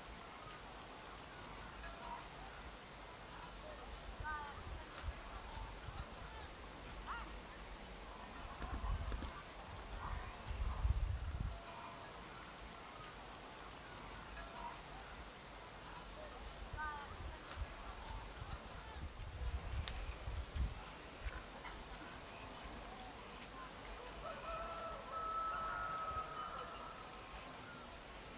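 Outdoor evening ambience: an insect chirping in a steady high-pitched pulse, three to four times a second, with scattered faint chirps. Low rumbles come and go, the loudest about eleven seconds in.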